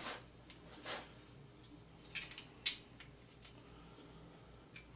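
Plastic fluorescent tube sockets being handled and slid into a light fixture's sheet-metal channel: a few faint clicks and taps, one about a second in, two more between two and three seconds in, and a faint one near the end.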